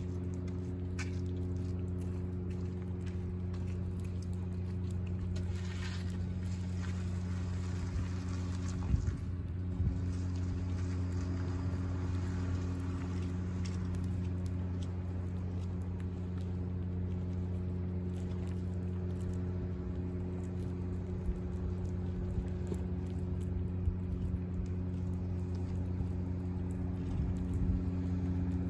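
A steady low mechanical hum runs throughout and is the loudest sound. Over it come faint clicks and smacks of a cat chewing raw fish, with a couple of sharper knocks about nine and ten seconds in.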